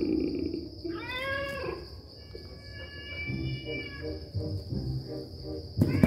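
Recorded cat meows played through a JBL portable speaker: one drawn-out meow about a second in, then a run of short, quick mews. Crickets trill steadily in the background.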